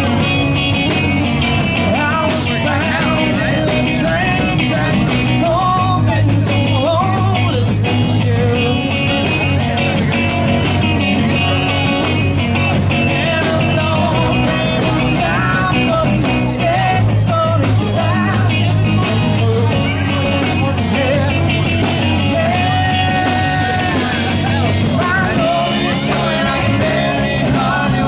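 Live rock band playing: a man singing into a microphone over electric and acoustic guitars, upright bass and a drum kit, with a steady beat.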